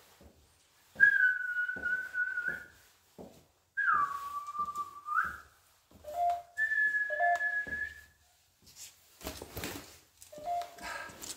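Three long whistled notes, each held for a second or more. The first is steady. The second slides down, holds lower, then rises again at its end. The third is steady and slightly higher than the first.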